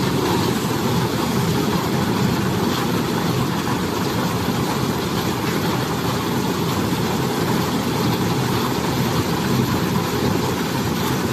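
Silage round baler and bale wrapper machine running with a steady, continuous mechanical noise and no distinct knocks or changes.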